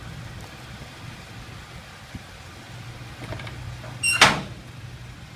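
A Ford sanitation truck's engine idling steadily, and about four seconds in the metal hatch lid on its collection body is slammed shut with one loud, ringing metal clang.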